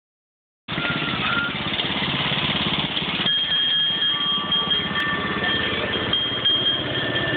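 Small engine of a kiddie barrel train's locomotive running steadily with a pulsing rumble as the train passes, starting abruptly just under a second in. About three seconds in, steady high tones join it.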